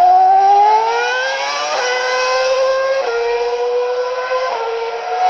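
Ferrari 2007 Formula 1 car's naturally aspirated 2.4-litre V8 at high revs. Its pitch climbs for about two seconds, then holds high with sudden breaks at about two, three and four and a half seconds in.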